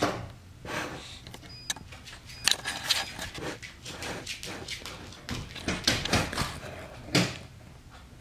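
Pomeranian's claws clicking and tapping on a hard floor as it trots about, in irregular light clicks with a few louder clusters.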